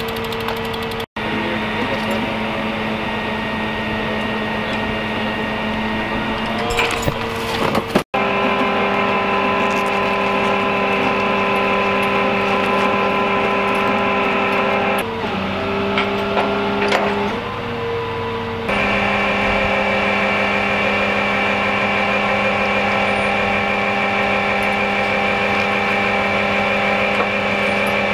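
A large vehicle's engine idling steadily, a hum with a clear pitch. It cuts out for an instant twice in the first eight seconds, and its pitch dips briefly and then settles a little past the middle.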